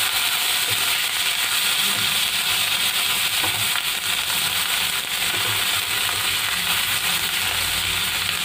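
Grated ginger with cumin seeds and asafoetida sizzling in hot oil in a nonstick frying pan while being stirred with a silicone spatula: a steady frying hiss.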